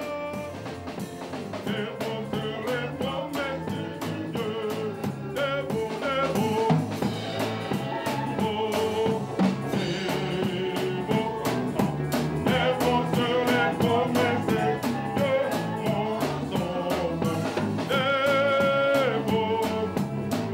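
Praise and worship music: a song sung with a drum kit keeping a steady beat and other instruments playing along.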